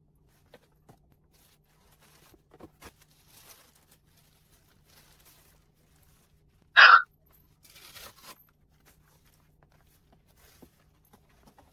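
Quiet handling of packaging and products: faint taps, clicks and rustles, with one short, sharp, loud sound about seven seconds in, followed by a brief rustle.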